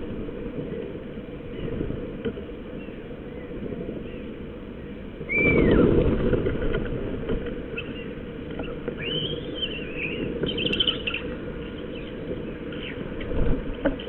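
Iberian (azure-winged) magpies calling: several short rising-and-falling calls, beginning with a loud rush of noise and a falling call about five seconds in, then a cluster of arched calls a few seconds later, over a steady low background hiss.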